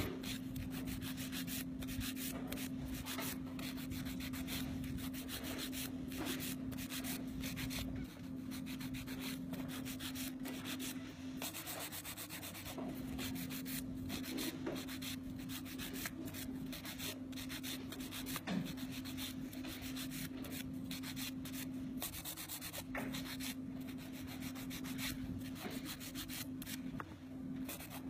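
Hand nail file rasping against a plastic nail tip in quick, repeated back-and-forth strokes as the tip is shaped. A steady low hum runs underneath.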